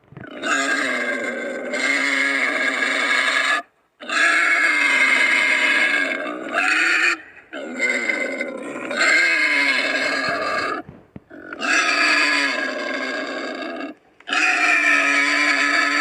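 Creature sound effect for an entelodont, an extinct pig-like mammal: about five long, loud calls in a row, each two to three seconds, with short breaks between.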